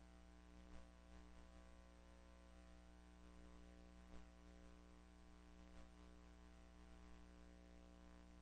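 Near silence: a faint steady electrical hum with a couple of soft ticks, the noise floor of a VHS transfer of silent film.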